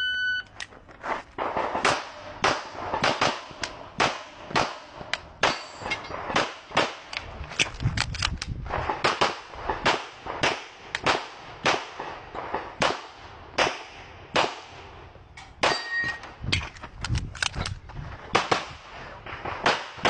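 Shot-timer start beep, then a competitor's handgun firing dozens of shots in quick pairs and runs. A metal target rings briefly a couple of times among the shots.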